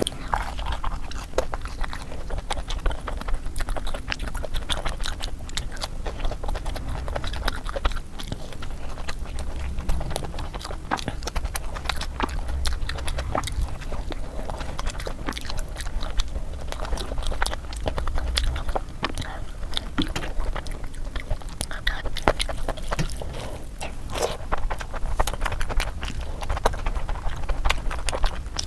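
Close-up chewing and wet mouth sounds of someone eating oily mutton fat curry with puri: a continual stream of small clicks and smacks over a steady low hum.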